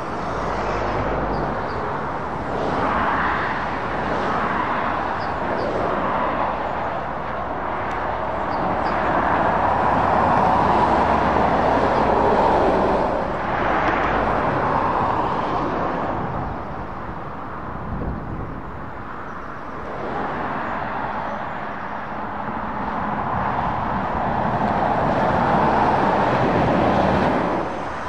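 Traffic on a dual carriageway: cars, vans and lorries passing, their tyre and engine noise swelling and fading as each goes by, with two louder passes in the middle and near the end.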